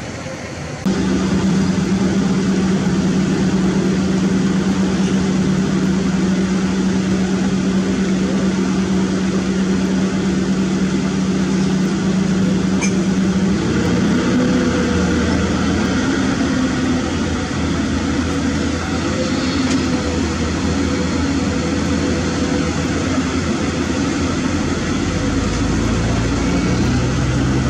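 Diesel engines of long-reach crawler excavators running steadily with a deep, even hum. The sound gets louder about a second in, and the engine note changes about halfway through as the Caterpillar 320D L gives way to a Komatsu PC200.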